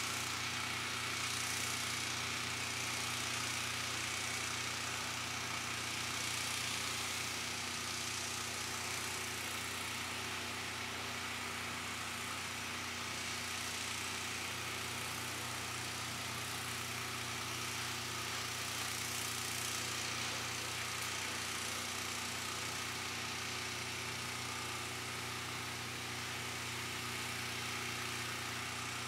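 Steady mechanical hum with a constant hiss over it, unchanging throughout.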